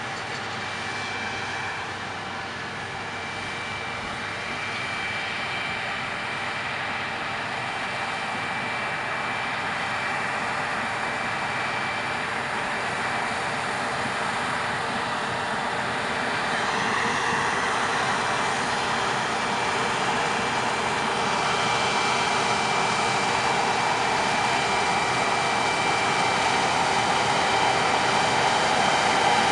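Claas Lexion combine harvester running under load as it cuts barley, its engine and threshing noise carrying a steady high whine and growing steadily louder as the machine comes closer.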